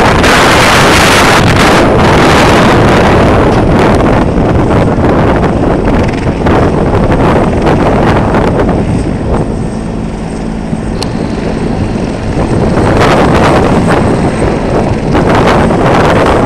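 Fire helicopter's engine and rotor running on the ground, under heavy wind buffeting on the microphone. The noise eases about nine seconds in, letting a steady low hum through, then builds again near the end.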